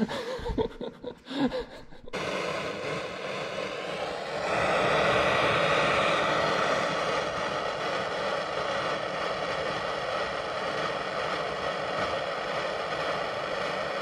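A steady machine noise that starts suddenly about two seconds in and gets louder about two seconds later.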